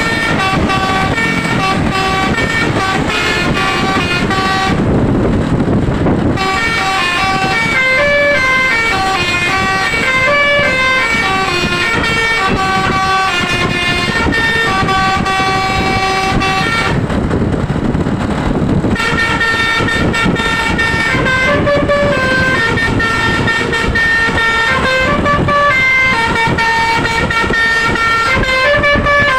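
Telolet basuri multi-tone horn on a tour bus playing a tune of held notes that step up and down. There are two short breaks, about five and seventeen seconds in, where only a low rumble is heard.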